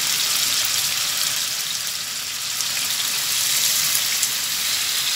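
Marinated chicken-breast strips sizzling in hot oil and butter in a frying pan over a high flame as more pieces are dropped in: a steady hiss with a light crackle.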